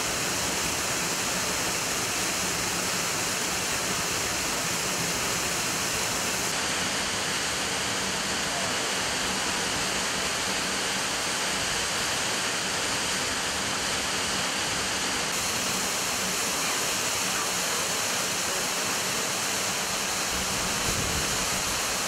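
Waterfall and its stream: a steady rush of falling water. The top of the hiss shifts slightly about six and fifteen seconds in.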